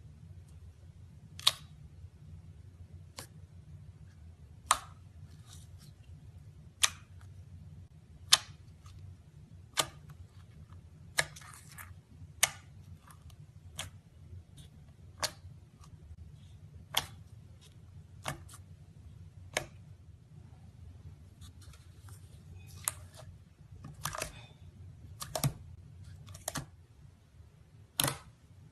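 Slime being pressed and poked, giving sharp pops about every one and a half seconds, with softer crackles near the end, over a faint low hum.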